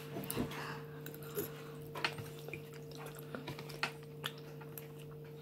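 Quiet eating: a fork clicking now and then against a plate, with soft chewing, over a steady low electrical hum.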